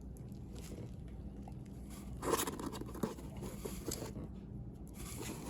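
Packaging being handled during an unboxing: rustling and scraping that starts about two seconds in, with a sharp click about a second later, over a steady low hum.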